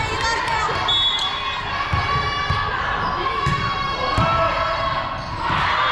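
Volleyball rally on a gym court: several dull thuds of the ball being hit and landing, among short high squeaks of athletic shoes on the floor, with players' calls and crowd voices.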